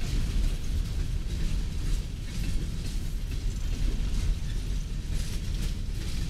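Coal gondola cars of a freight train rolling past: a steady rumble of steel wheels on rail with scattered clanks and rattles.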